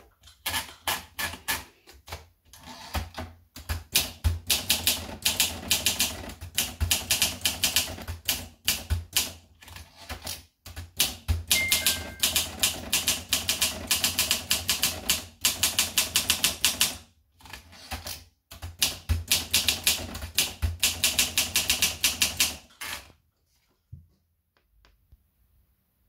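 Olympia SM2 manual portable typewriter being typed on fast, its keys and typebars striking in quick runs of sharp clicks broken by short pauses. The typing stops a few seconds before the end.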